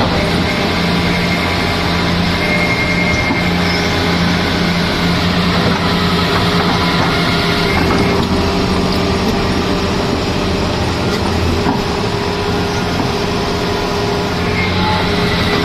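Excavator's diesel engine running steadily, loud and continuous, with a deep hum and faint higher whining tones over it.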